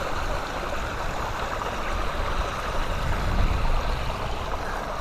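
Water running steadily through a small beaver dam of sticks and logs, with wind rumbling on the microphone.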